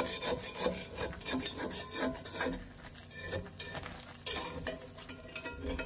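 Metal spatula scraping around the inside edge of a cast iron skillet, loosening the crispy crust of a pan pizza: a run of short rasping scrapes, quieter for a moment in the middle.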